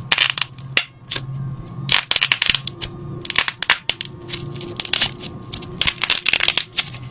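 Slime being squeezed and pressed, giving off rapid, irregular crackling and popping clicks in clusters, over a faint steady hum.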